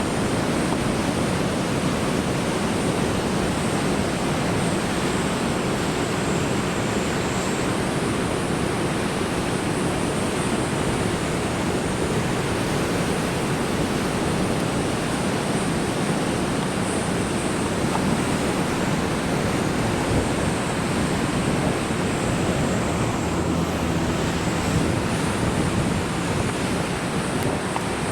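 Large typhoon swell breaking on a rocky coast: a steady, unbroken wash of surf noise.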